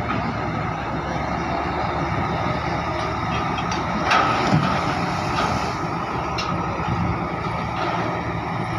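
A heavy engine running steadily, with a sharp knock about four seconds in.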